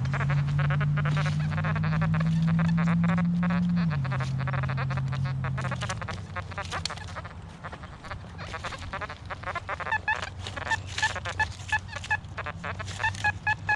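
XP Deus metal detector with an X35 coil sounding a loud, low honking tone that steps up and down in pitch, amid shovel scrapes and clicks in root-filled soil. From about ten seconds in it gives a quick repeated high beep, about three a second: the detector's overload signal over a large target.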